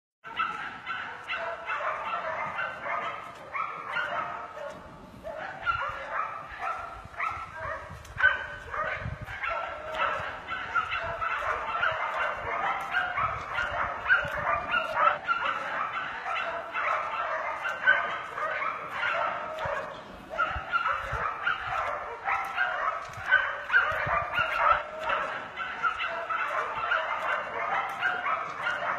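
A pack of hunting dogs barking continuously, with many barks overlapping.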